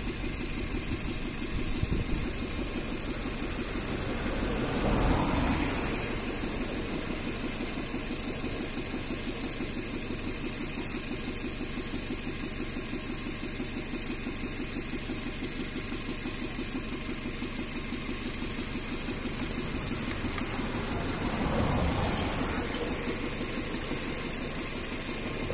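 Chevrolet Spark's small petrol engine idling steadily, with the bonnet open, while its coolant is topped up. The sound swells briefly louder twice, about five seconds in and again a little after twenty seconds.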